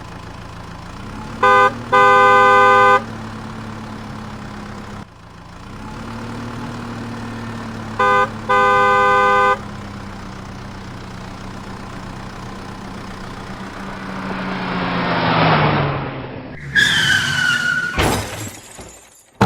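Cartoon vehicle sound effects: a steady engine hum that revs up a little, with a car horn sounding a short toot and then a longer honk, twice. Near the end a whoosh swells up, followed by a falling cartoon tone and a sharp crash.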